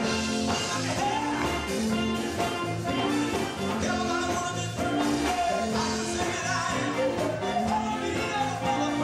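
Live gospel quartet music, amplified: a band keeping a steady bass line under singers on handheld microphones.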